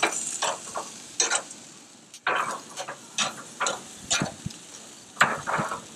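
Metal barbecue tongs clacking and scraping on a gas grill's grates as baby-back ribs are turned, in about a dozen irregular short strokes, over the faint sizzle of the ribs.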